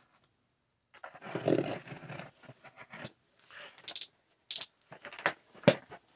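Cardboard shipping box being opened by hand: a loud rasping tear about a second in, then a string of sharp clicks and knocks as the box is handled.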